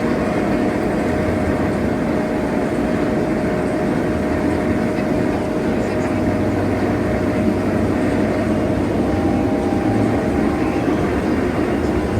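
Inverted roller coaster train running on its track: a steady rumbling noise with a faint steady hum underneath.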